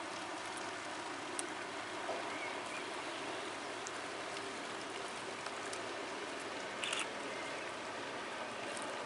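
Steady rushing hiss of water, with a few faint ticks and a short clatter about seven seconds in.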